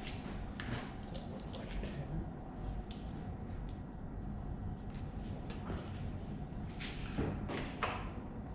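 Irregular metallic clicks and knocks of hand tools and engine parts being handled during a V8 engine teardown, over a steady low hum.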